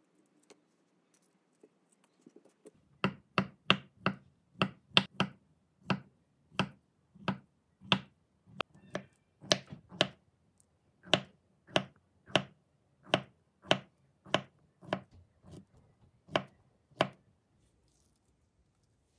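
Knife chopping on a cutting board: some two dozen sharp chops, roughly two a second, starting about three seconds in and stopping near the end.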